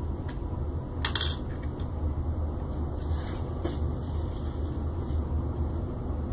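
Light clicks and clatter of hands handling a screwdriver and small parts on a 3D printer's Y-axis bed frame, the loudest knock about a second in and two fainter ones later, over a steady low hum.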